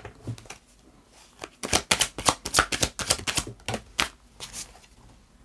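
Tarot cards being shuffled by hand, a quick run of crisp card clicks and slaps from about one and a half seconds in until near the end.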